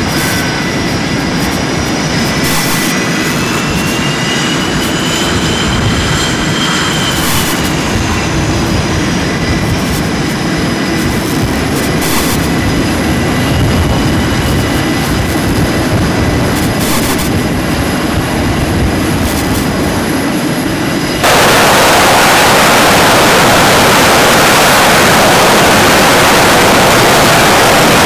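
The twin turbofan engines of an F/A-18F Super Hornet running loudly on a carrier catapult, with a whine that rises and then falls. About three quarters of the way through, the sound jumps suddenly to a much louder, even rushing roar.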